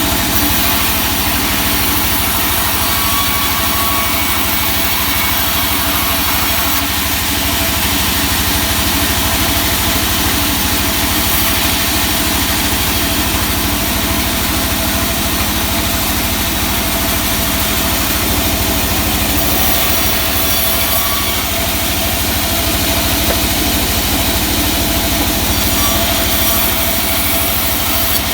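Sawmill machinery running steadily: a constant engine or motor hum with an even high-pitched hiss, with no change in pitch or load.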